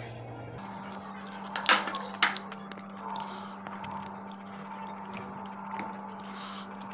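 Fingers squishing and mixing rice with fish curry on a plate, with two sharp clinks of the metal serving spatula against the dishes about two seconds in, over a steady low hum.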